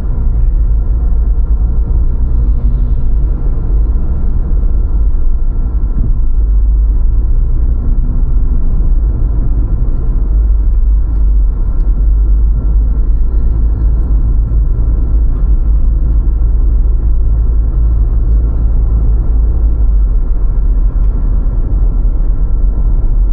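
A car driving: steady, loud low road and engine rumble, with a faint steady whine above it.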